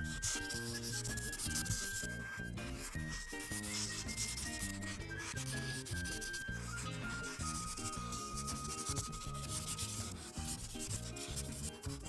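Ohuhu art marker rubbing over paper in quick repeated strokes, scratching steadily as it fills in a large background area.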